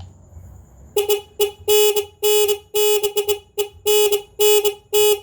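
CICADA multi-tone electronic horn board playing tone number 3: about ten loud beeps on one steady pitch, short and longer ones mixed in a fixed pattern, starting about a second in.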